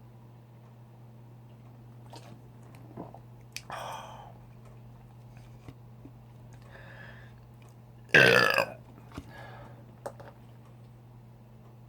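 A person burps loudly once, about eight seconds in, a short burp of about half a second. A few much quieter short sounds come before it.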